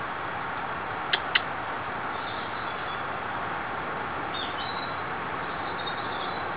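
Two sharp clicks about a quarter second apart, a little over a second in, over a steady hiss, with a few faint high chirps later.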